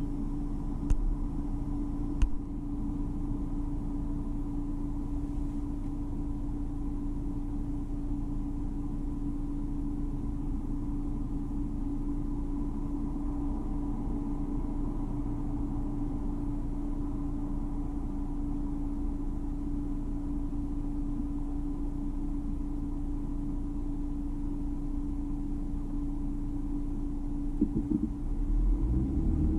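Car idling at a standstill: a steady low rumble and hum, with two sharp clicks about one and two seconds in. Near the end the engine note rises and grows louder as the car pulls away.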